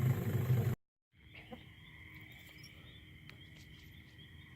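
A low steady rumble cuts off abruptly under a second in. After a brief gap, a faint, steady, high-pitched chorus of night insects or calling frogs takes over, with a faint low hum beneath it.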